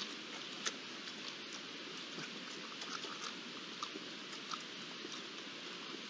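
Wild boars foraging close by: irregular small crunches and clicks from their feeding and trampling in dry grass, over a steady hiss.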